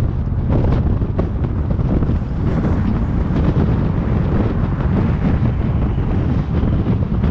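Wind buffeting the microphone over the steady low rumble of a car driving along the road.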